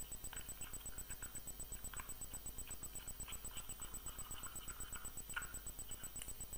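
Faint, irregular scraping and light clicks of a thick homemade petroleum-jelly cream being stirred in a small plastic Vaseline tub, over a steady low hum.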